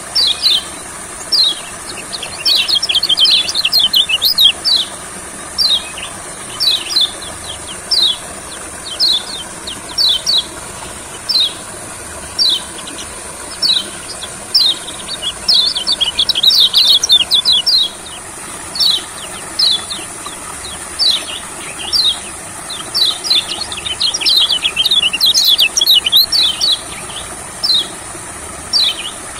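Kecial kuning (white-eye) calling: short, sharp, falling chirps about one or two a second. Three times these break into a rapid chattering song burst lasting a few seconds.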